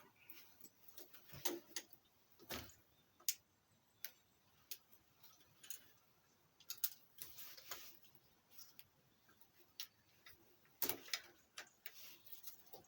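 Scattered light clicks and knocks from motorcycle parts being handled during a strip-down, coming at uneven intervals, with a small cluster of louder knocks near the end.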